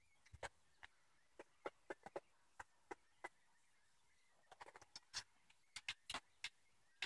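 Faint, sharp clicks and ticks at irregular intervals against near silence, coming more thickly in the second half.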